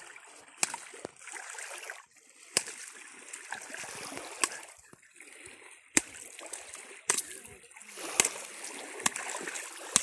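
A wooden stick jabbing and slapping at jellyfish in ankle-deep seawater: splashing and sloshing with about nine sharp knocks at irregular intervals, roughly one a second.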